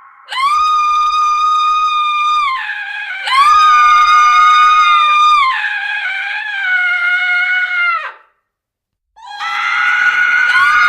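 Woman screaming horror sound effect: long, high, held screams one after another, each sustained for about two seconds, with a brief silence before a last scream starts near the end.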